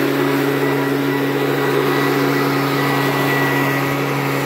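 Handheld leaf blower running steadily at a constant pitch, blasting fallen leaves and loose debris off the soil.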